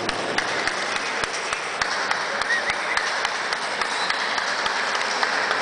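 Spectators clapping in a steady rhythm, about three claps a second, over a constant background hubbub.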